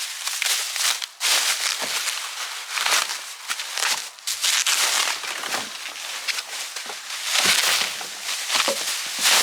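Plastic packaging wrap crinkling and rustling in irregular bursts as it is pulled off a new bike.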